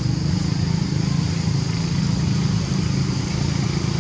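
A small engine running steadily, a continuous low drone with no change in pitch, over a steady high hiss.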